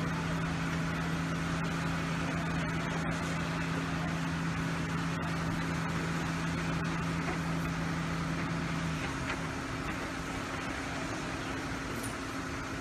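Vehicle engines idling: a steady low hum over constant outdoor noise, with the deeper hum dropping out about nine seconds in.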